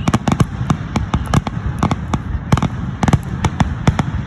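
Fireworks going off in a rapid, loud barrage: sharp bangs and crackles several times a second over a continuous low rumble.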